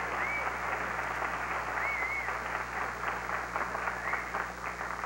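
Studio audience applauding an ovation, dense clapping that begins to thin out near the end.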